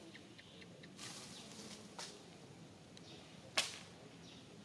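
A single sharp snap about three and a half seconds in, with a softer click near the two-second mark, over faint outdoor ambience with a few brief high chirps.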